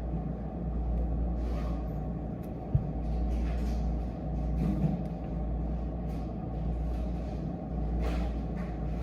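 Steady low background rumble of a room, with a few faint soft rustles or taps and one short dull thump about three seconds in.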